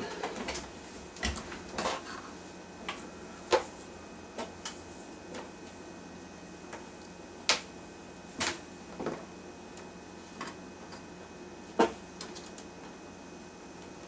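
Scattered sharp clicks and light knocks, a dozen or so at irregular intervals, from objects being handled while a power cord is reached for and readied.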